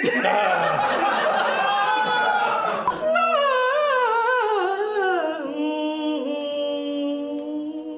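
A voice sings or hums a wavering, vibrato-laden line that slides downward in pitch and settles on a low held note, over a steady sustained musical tone. The first few seconds are a denser mix of voices and music.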